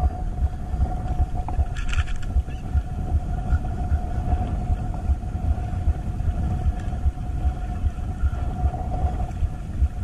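Wind buffeting the microphone in an unsteady low rumble, with a faint steady hum running through it and a brief rustle about two seconds in.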